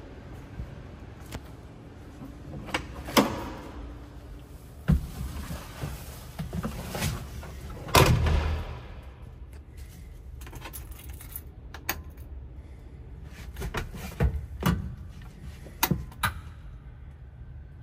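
Scattered clunks and knocks from handling a 1979 Land Rover Santana 109 Series III, the loudest a heavy metal thump about eight seconds in. Near the end come keys jingling and clicking at the ignition as the dashboard warning lights come on.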